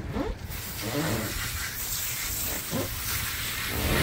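Pressure hose spraying water onto a gutted barracuda on a cleaning table, a steady hiss that starts about half a second in, rinsing the blood out of the fish's body cavity.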